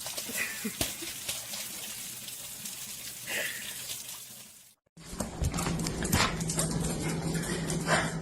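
A dog whimpering: two short high whines, about three seconds apart. After a cut, a steady low hum with scattered clicks and knocks.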